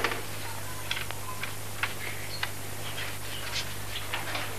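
Pause between lines: steady low hum and hiss of a worn recording, with a few faint scattered clicks.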